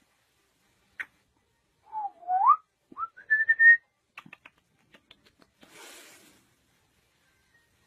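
Puppy whining in thin, whistle-like tones: one dips and then climbs steeply, and a short higher whine follows about a second later. A few soft clicks and a brief breathy hiss come after.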